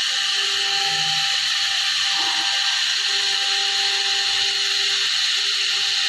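AccTek AKH 1500 handheld fiber laser welder welding with an even, continuous hiss, under faint steady hum tones from the machine.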